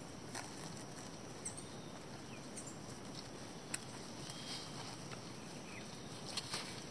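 Faint outdoor background hiss with scattered soft clicks and a few brief, high chirps; the sharpest click comes near the middle.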